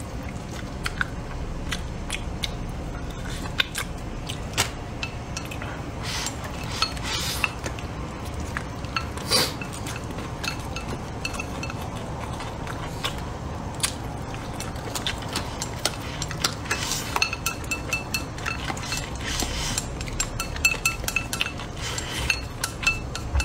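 Chopsticks clicking and scraping against a porcelain rice bowl as rice is scooped out, in scattered sharp clinks. Toward the end the clinks come thicker and some leave the bowl ringing briefly.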